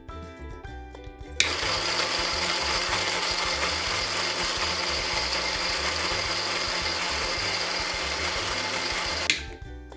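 Toy blender running with plastic toy fruit and vegetable pieces spinning in its jug: a steady whir that starts sharply about a second and a half in and stops sharply near the end.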